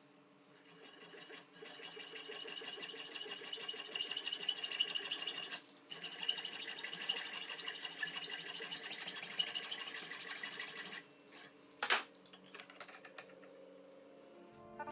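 Electric drill driving a homemade cutting machine, running with a steady high whine and rasping against the workpiece. It pauses briefly about halfway, stops near the end, and a single sharp click follows.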